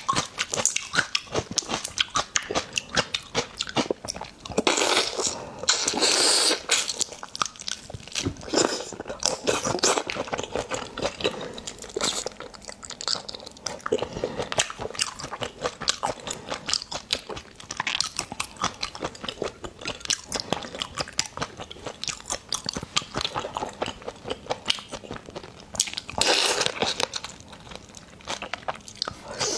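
Close-miked eating of raw marinated shrimp: rapid crunching and wet chewing as the shells and flesh are bitten. There are two longer sucking slurps, about five seconds in and near the end.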